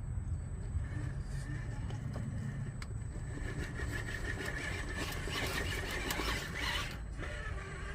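Vanquish Phoenix VS4-10 RC rock crawler driving under load, its electric motor and drivetrain whining, louder from about five to seven seconds in as it climbs an obstacle, with scraping and clicking there.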